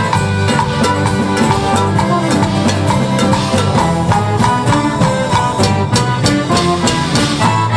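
Instrumental band music: drums keeping a steady beat under several pitched instruments playing.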